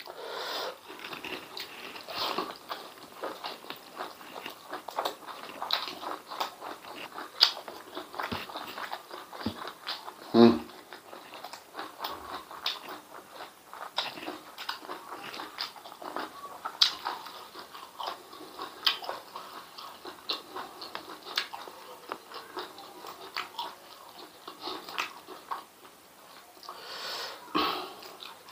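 Close-miked wet chewing of a person eating chewy spicy beef and chicken intestines with rice, full of lip smacks and sharp mouth clicks, with one louder mouth sound about ten seconds in.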